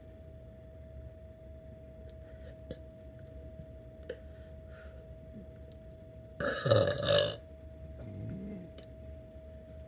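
A person burps once, loudly, about six and a half seconds in; the burp lasts just under a second. A fainter, low, short sound follows about a second later.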